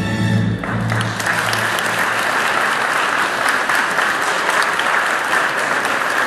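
Large indoor audience applauding steadily after the polonaise. The tail of the polonaise music dies away in the first second or so.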